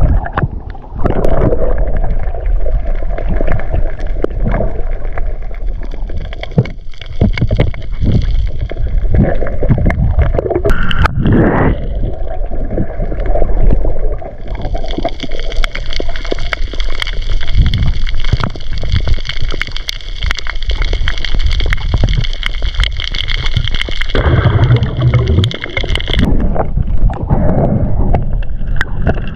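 Underwater sound from a camera swimming through the water: a low, muffled rushing with frequent knocks, and a steady high whine from about halfway through until near the end.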